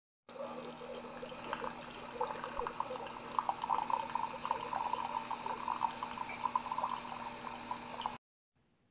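Keurig single-serve coffee maker brewing, with a steady hum and coffee spluttering as it streams into a glass mug. It cuts off suddenly about eight seconds in.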